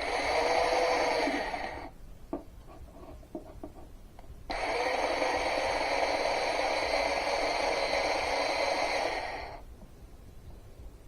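Corded electric drill running as it bores through a back plate, in two runs: the first stops about two seconds in, a few light clicks follow, then a second steady run starts at about four and a half seconds and cuts off near the end.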